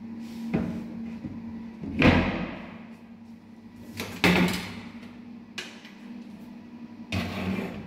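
Glass-fronted kitchen wall-cabinet doors being opened and shut by hand: a light click, then loud knocks about two seconds and four seconds in, another click, and a last knock near the end.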